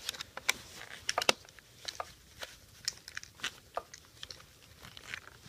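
Scattered light clicks and taps as the handlebar clamp bolt on a Segway's shaft is loosened and the assembly handled, strongest about a second in.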